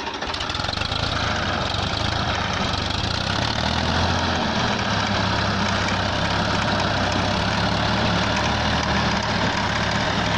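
Ford 3600 tractor's three-cylinder diesel engine running steadily under load, driving a 7 ft rotavator whose blades churn through paddy stubble and soil. It grows a little louder over the first couple of seconds, then holds even.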